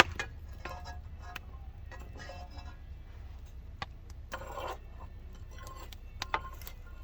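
Scattered metallic clinks, knocks and scrapes of cooking tools against a frying pan and the embers of a wood-fired oven, with a short scraping rush a little past the middle.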